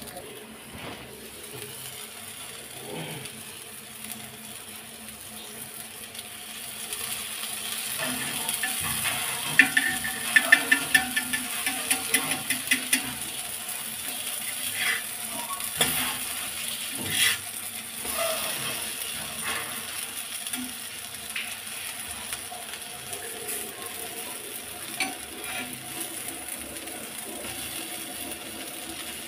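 Spice-coated eggplant slices shallow-frying in oil, sizzling steadily. About a third of the way in comes a run of sharp metal spatula scrapes and taps against the pan as the slices are turned, with a few more a little later.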